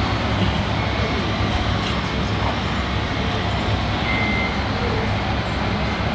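Radio-controlled model trucks and construction machines running, a steady engine-like drone, with a short high beep about four seconds in.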